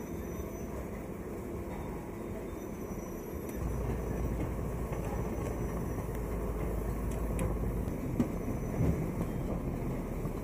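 Brick-plant clay-processing machine running steadily as loose clay earth is fed through its steel hopper and chute. A deeper motor hum comes in about three and a half seconds in and drops away a few seconds later, and a couple of knocks sound near the end.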